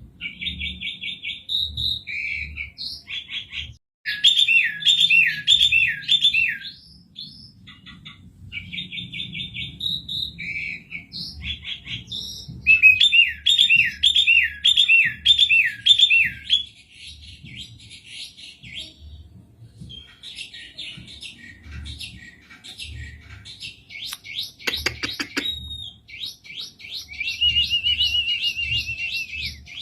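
Asian pied starling singing: fast chattering phrases alternating with runs of repeated looping whistled notes, broken by short pauses.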